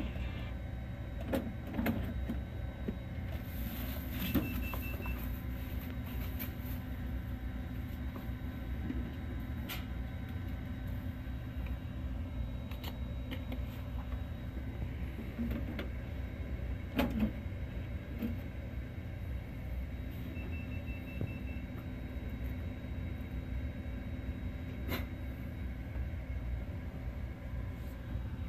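Mutoh VJ628 wide-format printer running with a steady low hum and a mid-pitched motor whine through most of it, with a few sharp plastic clicks as the ink cartridges are pulled and pushed back into the ink station. A faint high beeping sounds twice.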